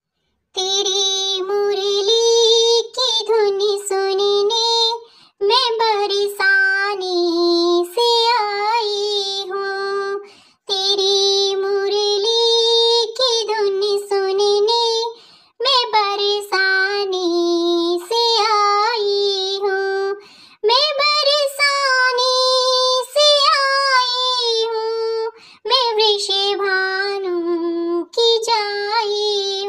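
A high-pitched voice singing a song in phrases of about five seconds, with short breaks between them and little or no accompaniment.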